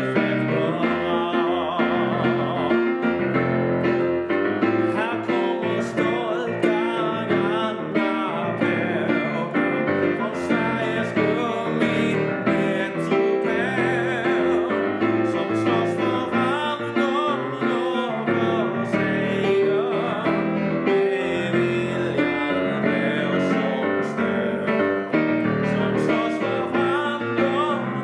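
A hymn sung by a man's solo voice with piano accompaniment.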